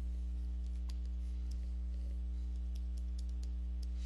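Steady low electrical hum on the recording, with a scattering of faint, light key clicks as numbers are punched in to add up a sum.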